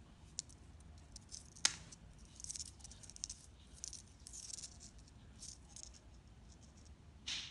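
Faint handling noise of steel circle hooks and monofilament fishing line: scattered sharp clicks and short rustles as the line is threaded through a hook's eye and drawn through the fingers, with one louder click under two seconds in.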